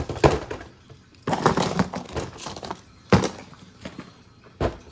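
Boxed toy packaging being handled: short bursts of rustling and clicking, with a sharp knock about three seconds in and another near the end.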